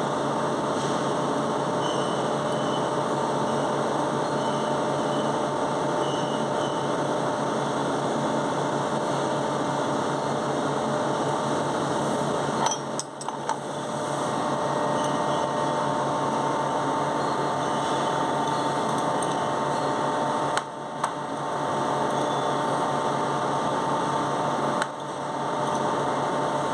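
Steady machine hum with a faint steady tone in it, dipping briefly three times.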